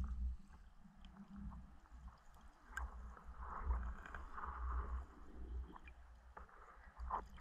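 Muffled underwater sound through a waterproof camera housing: a low rumble of water moving against the housing, with scattered faint clicks and soft rustling about halfway through as a spearfisher crawls through water weeds.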